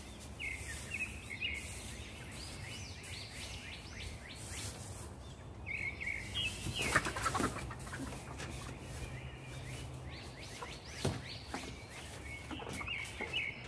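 Birds chirping in short runs of high, arching notes near the start, again after about six seconds and near the end, with a rustle of straw being handled about seven seconds in.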